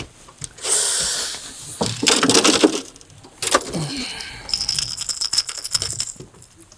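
Fishing tackle being handled: a lure's metal hooks and parts clinking and rattling in several bursts, with a short high whine and rapid clicking near the end.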